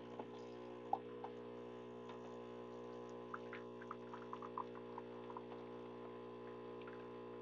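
Gaggia Magenta Plus super-automatic espresso machine humming steadily as it pulls a shot, with a few faint clicks and drips, mostly between about three and five seconds in. The owner judges the shot too fast, about 11 seconds from first drip, giving a watery espresso.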